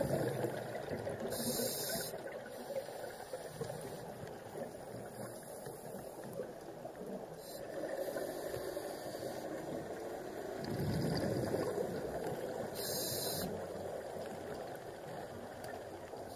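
Scuba diver breathing through a regulator underwater: a couple of short hisses of inhaling, and longer swells of exhaled bubbles.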